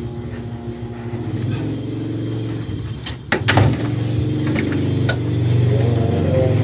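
Wooden snake-cage lid knocked shut about three seconds in, followed by two lighter metallic clicks as the metal hasp latch is fastened. A steady low hum runs underneath throughout.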